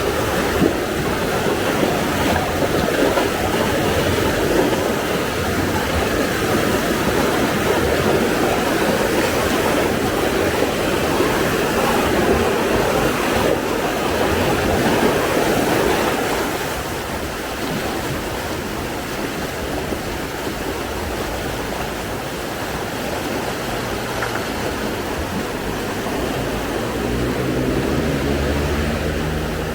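A vehicle on the move, with loud, steady engine and road noise; near the end the engine note climbs as it revs.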